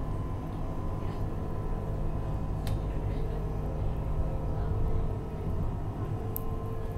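Class 399 Citylink tram-train running along the track, heard from inside at the front: a steady low rumble with a faint steady whine above it. A sharp click about two and a half seconds in and a short high tick near the end.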